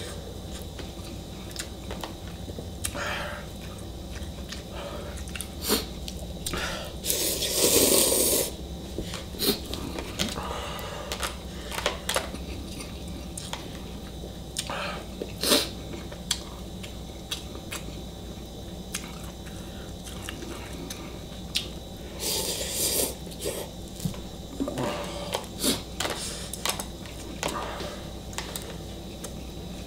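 A person eating Shin ramen noodles with chopsticks: chewing, short clicks of chopsticks against the bowl, and two louder slurps, one about eight seconds in and one past twenty seconds.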